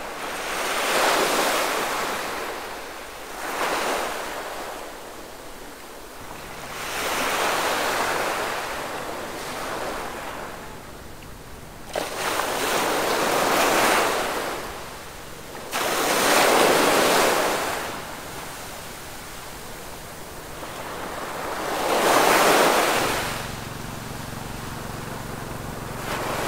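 Small waves breaking on a sandy beach, the surf swelling and dying away every few seconds.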